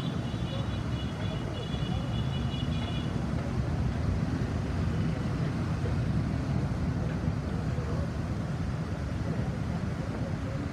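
Steady rumble of motor traffic on a busy city avenue, with a thin high tone over it for the first three seconds.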